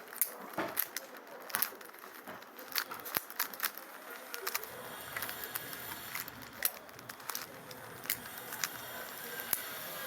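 Rubik's cube being turned by hand: irregular clicks and rattles of the plastic layers snapping into place as they are twisted.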